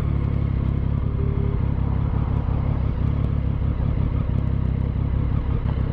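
Motorcycle engine idling steadily with a low, even rumble while stopped in traffic.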